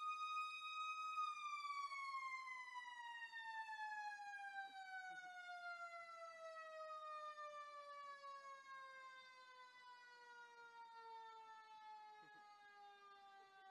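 Fire truck's mechanical siren winding down: a single wail that climbs slightly for about a second, then falls slowly and steadily in pitch and fades as the rotor coasts to a stop.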